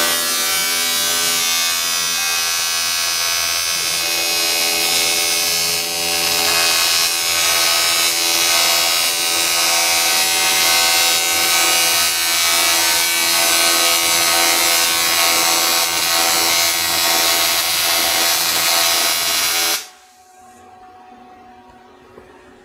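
TIG welding arc running a bead: a loud, steady buzz and hiss that cuts off suddenly about twenty seconds in as the arc is broken.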